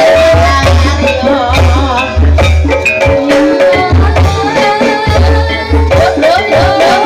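Loud traditional Javanese ebeg accompaniment music: pounding drums and sharp struck percussion under a wavering melody line.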